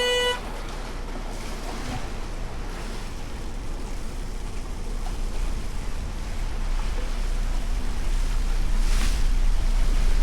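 Boat underway on open water: a steady low engine rumble under wind and water noise, slowly growing louder. A short electronic beep sounds at the very start, and a brief hiss comes about nine seconds in.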